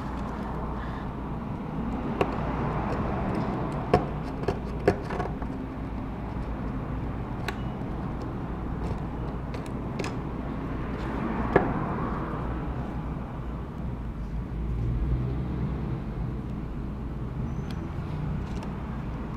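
Scattered small clicks and light scraping of hand tools on an iPod touch 4th generation's metal frame as it is cleaned, over a steady low rumble.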